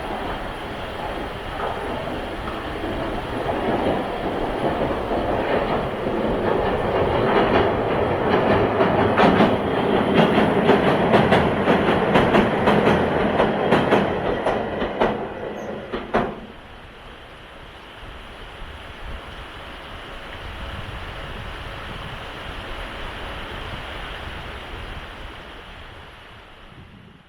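Ueda Electric Railway Bessho Line electric train passing close, its wheels clacking rapidly over rail joints as it grows louder, then cutting off abruptly about sixteen seconds in. A softer steady rushing noise follows.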